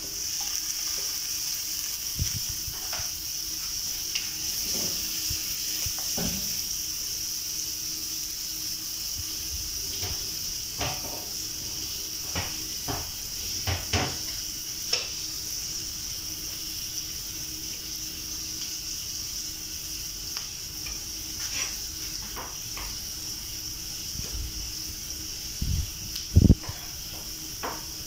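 Chopped garlic and onion sizzling in oil in a frying pan, a steady high hiss, with scattered clicks and knocks as the pieces are stirred and a couple of louder thumps near the end.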